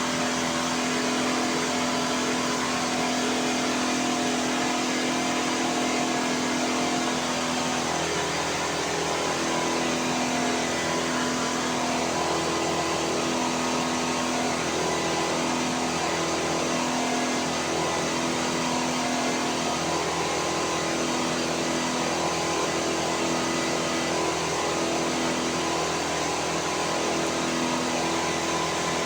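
3D printer running, its stepper motors whining in steady tones over an even whirring noise. The main tone holds for the first several seconds, then switches on and off every second or two as the axes start and stop.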